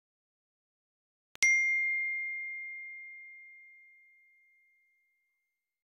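A single bell-like ding: one sharp strike that rings on one clear tone and fades away over about three seconds.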